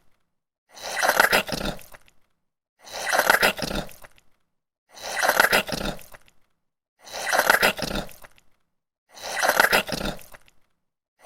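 Wet mud squelching and bubbling, one short squishy burst of about a second and a half, repeated identically about every two seconds with silence between: five full times, and a sixth starting near the end.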